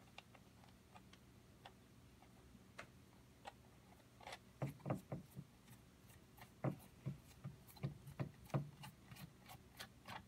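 Light clicks and ticks of small metal engine parts being fitted and turned by hand on a wooden base. They are sparse at first, then come in an irregular run from about halfway through, quicker toward the end.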